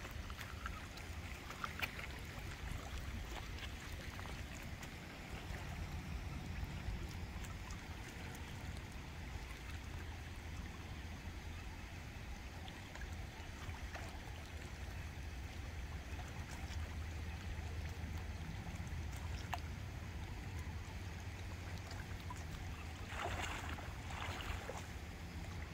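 Shoreline ambience: a steady low rumble with gentle water sounds around the shallow rocky shore, and a brief splash-like rush near the end.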